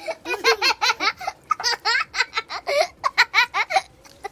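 A child laughing hard: a long run of quick ha-ha pulses, about five a second, that trails off near the end.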